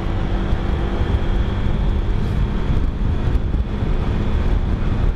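Motorcycle ride recorded on a helmet camera: the engine runs at a steady cruising speed under a constant rumble of wind and road noise on the microphone.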